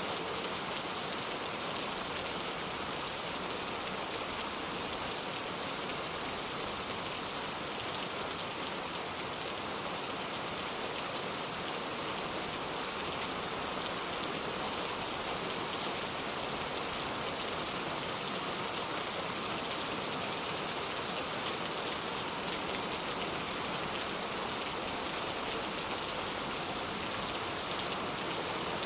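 Steady rain falling, an even hiss of many drops on surfaces with occasional single drops ticking out, one a little louder about two seconds in.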